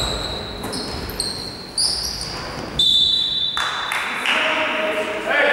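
Basketball shoes squeaking on a wooden gym floor during play, then one short blast of a referee's whistle about three seconds in, followed by voices in the hall.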